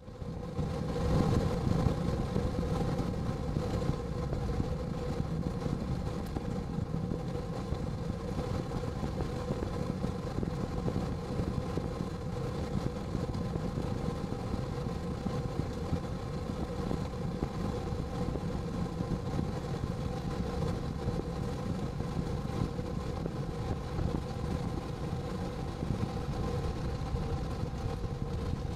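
Steady engine and road noise of a moving car, a low rumble with a steady hum.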